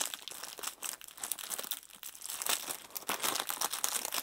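Clear plastic bag crinkling and rustling with an irregular crackle as hands squeeze and shift the small bagged packets of diamond-painting drills inside it.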